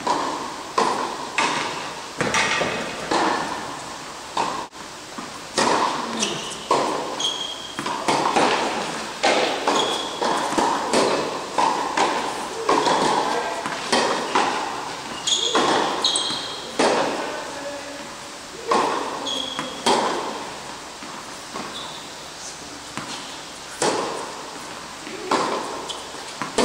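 Tennis rally on an indoor hard court: repeated sharp pops of the ball off the rackets and its bounces on the court, every half second to second or so, each ringing out in the hall's echo. A few short high squeaks of shoes on the court come in between.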